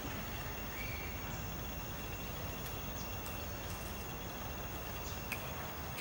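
Outdoor ambience: a steady hiss with a faint, steady high-pitched tone and a few faint clicks.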